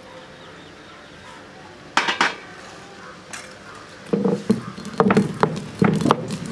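Stone roller of an ammi, a flat stone grinding slab, crushing dried red chillies and black peppercorns: rhythmic grinding strokes, a little over one a second, starting about four seconds in. A short clink about two seconds in.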